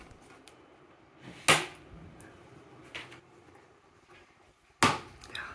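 Sharp clicks of plastic push-fastener pins snapping into plastic screws on a metal bracket: one about one and a half seconds in, a fainter one near three seconds, and the loudest near the end.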